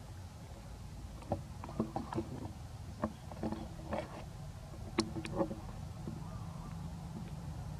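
Irregular light clicks and knocks, about a dozen, most of them between one and five and a half seconds in, over a steady low rumble.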